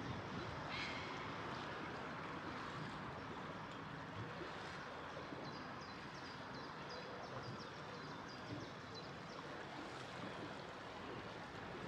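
Steady rush of water and wind as a yacht moves slowly along a narrow channel. In the middle, a run of quick, high-pitched chirps rings out, with one short high call near the start.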